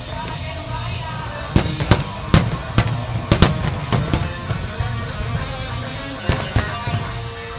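Aerial firework shells bursting: a quick series of sharp bangs through the middle, then two more near the end, over continuous music.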